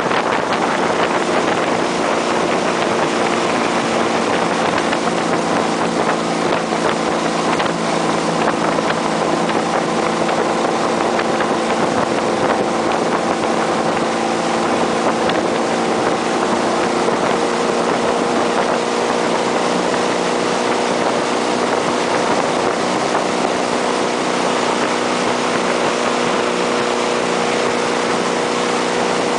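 Tow boat's engine running steadily at speed, a constant hum, over the rush of spray and wake and wind on the microphone.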